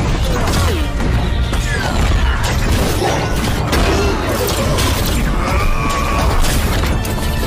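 Action fight-scene soundtrack: music under the mechanical whirring and clanking of a giant robotic armour suit, with repeated crashing impacts over a deep rumble and several rising and falling whooshing whines.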